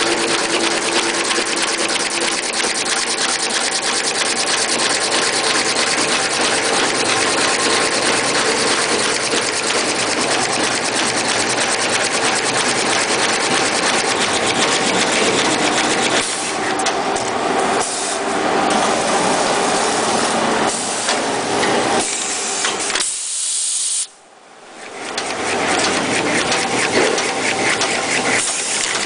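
Kitchen-towel rewinding line running: a steady, loud mechanical clatter and hiss of its rollers and drives, with a fast, even ticking. Near the end the sound drops away for about a second and then comes back.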